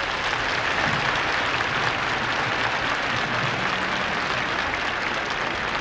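Large crowd applauding steadily, heard on an old archival recording.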